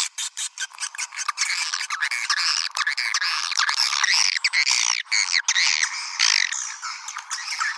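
Swiftlet lure call: a dense, unbroken stream of overlapping rapid chirps, twitters and sharp clicks from swiftlets. It is the kind of calling sound played to draw swiftlets in.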